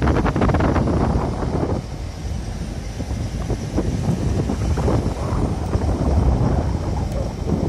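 Wind buffeting the microphone: a loud, rough low rumble, gusting hardest in the first two seconds and then easing to a steadier roar.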